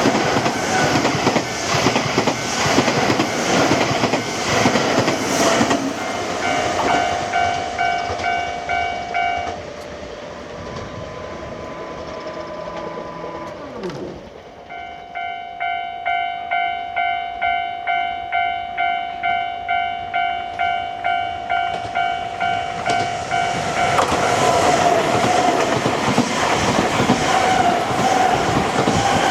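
Nankai Kōya Line train passing over a level crossing, its wheels clattering over the rail joints. The crossing's warning bell then rings at about two strikes a second, pauses, and starts again. Another train passes over the crossing near the end.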